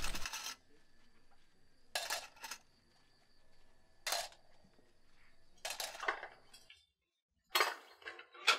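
Dishes and cutlery clinking as they are washed by hand in a basin. There are a few separate clinks a second or two apart, and a busier run of clatter near the end.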